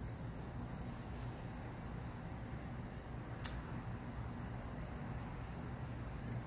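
Steady low hum with a faint, steady high whine, and one sharp click about three and a half seconds in.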